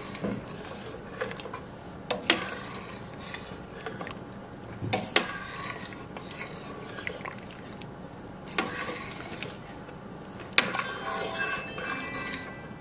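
A metal spoon stirring soup in a stainless steel pot, stirring in a flour-and-water roux, and clinking against the side of the pot every few seconds, with a steady hiss underneath.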